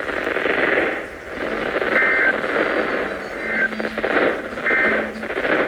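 A weather radio receiver hissing with static, with three short bursts of two-tone digital data about a second and a half apart: the SAME header tones that announce an Emergency Alert System warning.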